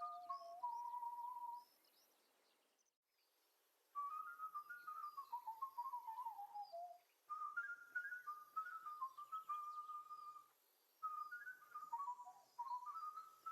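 A person whistling a slow tune in four phrases, with a pause of about two seconds after the first phrase. Birds chirp faintly in the background.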